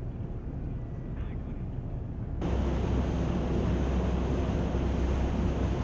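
Boat engine running under wind buffeting the microphone and water rushing. About two and a half seconds in, the sound jumps louder and brighter, over a steady low hum.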